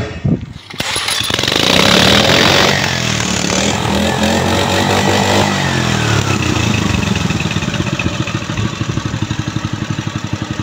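Robin EY15 single-cylinder engine on a portable water pump pull-started, catching within the first second. It runs loudest around two seconds in, its speed shifting for a few seconds before settling into a steady run.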